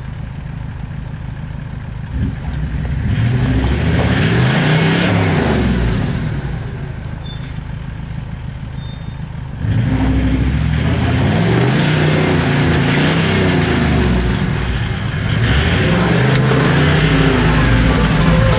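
Four-wheel-drive vehicle's engine revving up and easing off again and again, with an abrupt change in level about halfway through.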